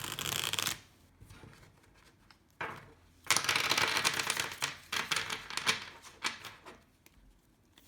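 Tarot deck being shuffled by hand: the cards make quick clicking runs, one short at the start and a longer, louder one about three seconds in, with a few single clicks as the cards are squared up after it.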